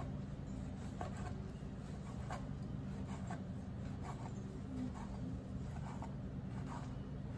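Chef's knife slicing sausages into rounds on a plastic cutting board: a light tap each time the blade goes through and meets the board, about once a second. A steady low hum runs underneath.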